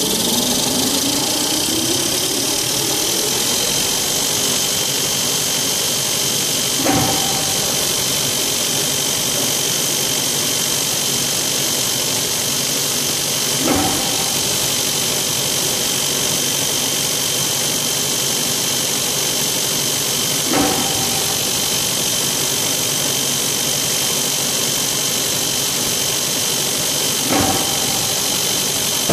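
LYISH continuous toilet-paper rewinder running at about 350 m/min, a steady mechanical whine with high steady tones, rising in pitch over the first few seconds as it comes up to speed. A brief bump with a short tone comes about every seven seconds, four times: the web transferring to a new core at the end of each log.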